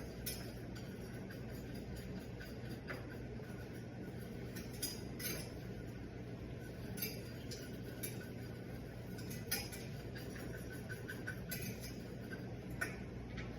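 Metal kitchen utensils clinking irregularly against a saucepan, a few light clinks every second or two, as a butter-and-flour roux is stirred and cooks out. A steady low hum runs underneath.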